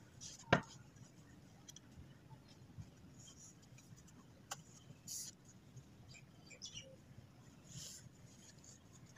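Faint, scattered taps, clicks and short scrapes of wooden boards being handled and set against one another, with one sharper knock about half a second in.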